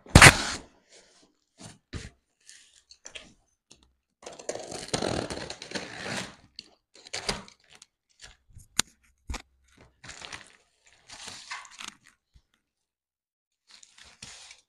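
A taped cardboard shipping box being opened: a loud thump at the start as the box is put down on the ironing board, then a blade slitting and tearing the packing tape and cardboard, with scattered clicks and rustling.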